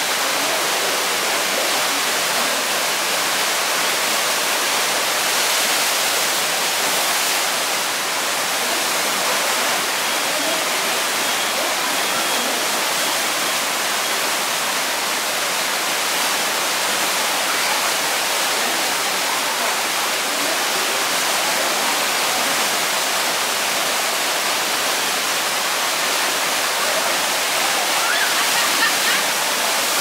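Whitewater rushing steadily through the rapids channel of a river rapids water ride, a dense unbroken churning of water.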